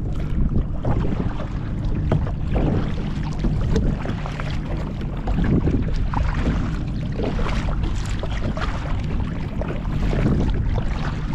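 A double-bladed kayak paddle dipping into the water and splashing on each stroke, over a steady low wind rumble on the microphone.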